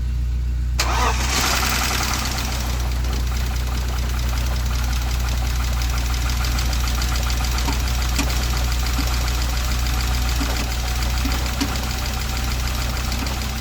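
BMW E39 528i's 2.8-litre straight-six running, with a fast metallic rattle over it from about a second in. The owner puts the rattle down to the timing-chain tensioner getting no oil pressure.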